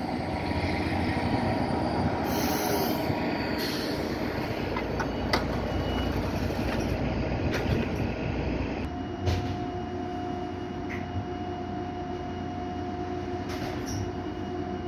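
Caltrain bilevel passenger cars rolling slowly to a stop at the platform, a dense rumble with a burst of hiss about two seconds in and a few sharp clicks. About nine seconds in the rumble gives way to the stopped train's steady hum with a held tone.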